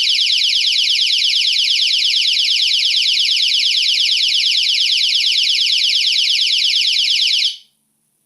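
GSM security alarm's siren sounding after being triggered, running on its backup battery with mains power off. It is a loud, high-pitched warble of rapid, repeating rising sweeps that cuts off suddenly near the end.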